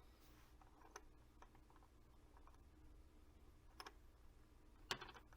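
Faint scattered clicks and light taps of small RC beadlock wheel parts being handled and fitted together, the sharpest click near the end, over a low steady room hum.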